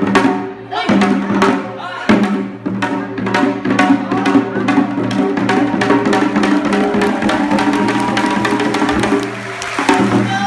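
Pansori music: long, held sung notes over many sharp knocks, in the way a buk barrel drum is struck on its wooden rim and head.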